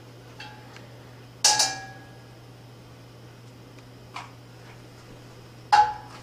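A metal utensil strikes the rim of a stainless steel wok as coconut oil is knocked off into the pan. There are two loud ringing clinks, one about a second and a half in and one near the end, with a few faint taps between.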